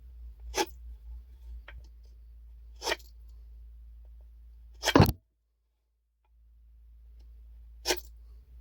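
A handful of sharp wooden knocks and taps from handling a handmade marking gauge against a board, with faint small clicks between them; the loudest knock comes about five seconds in and is followed by about a second of dead silence.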